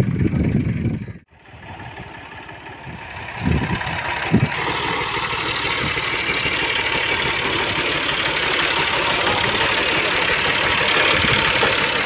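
Farm tractor's diesel engine running steadily as the tractor is driven, with a couple of short thumps just before it settles in.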